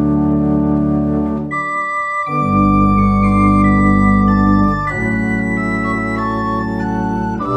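Organ playing slow, held chords that change every couple of seconds.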